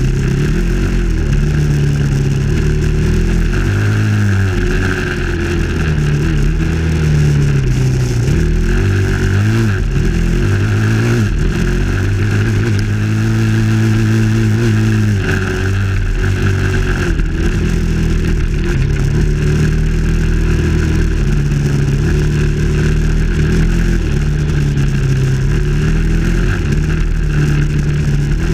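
Dirt bike engine heard from on board while riding a trail, its pitch rising and falling as the throttle is opened and closed.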